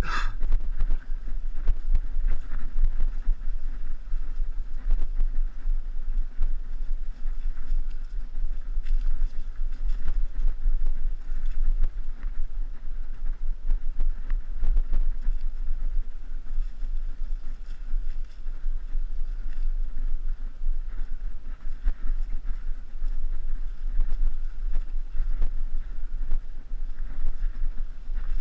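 Wind buffeting an action camera's microphone on a mountain bike riding a dirt forest singletrack, a heavy fluctuating low rumble, with small irregular knocks and rattles from the bike jolting over the ground. A brief sharp sound comes right at the start.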